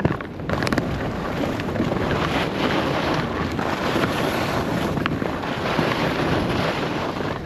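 Wind buffeting an action camera's microphone while skiing, over the steady rushing of skis sliding on snow.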